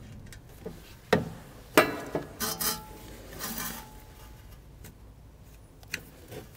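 Several sharp metallic clinks and knocks in the first three seconds and one more near the end, as a socket tool and the ABS wheel speed sensor are handled against the rear wheel hub carrier, with quiet handling noise between them.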